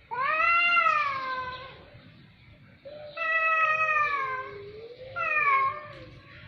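Cat meowing in three long drawn-out calls. The first rises and then falls in pitch, and the last is shorter.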